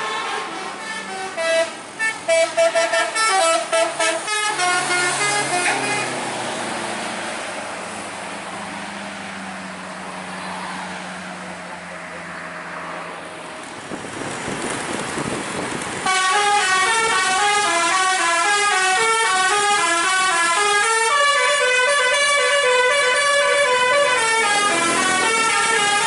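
Indonesian 'telolet' bus horn, a basuri multi-tone musical horn, playing quick note sequences. There is a burst of notes over the first few seconds, then the bus engine and road noise, and then from about two-thirds in the horn plays a loud, continuous tune.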